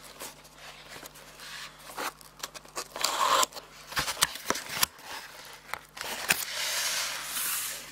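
Cardboard box being opened by hand: flaps and a corrugated insert scraping, with many sharp clicks and snaps. A longer rustle comes about six and a half seconds in.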